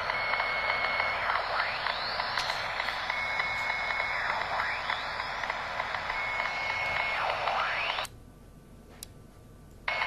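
Unidentified radio signal around 65.57 MHz coming through a Uniden UBC3500XLT scanner's speaker: a steady hiss with swooping whistles that fall and rise about every two and a half seconds, and a steady beep that comes and goes. About eight seconds in the signal cuts out for nearly two seconds, with a single click, then comes back.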